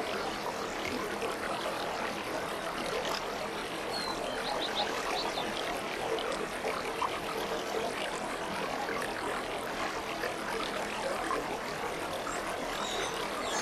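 Aquarium water bubbling and trickling steadily, with many small pops and splashes.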